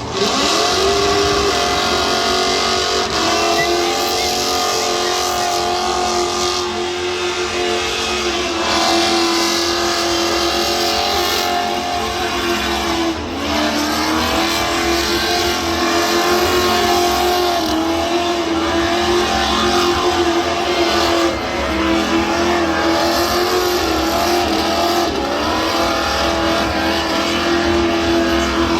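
Car engine held at high revs through a long burnout, wavering slightly, with a brief dip in revs about 13 seconds in.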